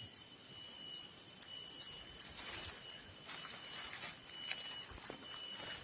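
Small birds chirping: short, high notes repeated irregularly over a steady, high insect-like whine, with scattered rustling knocks.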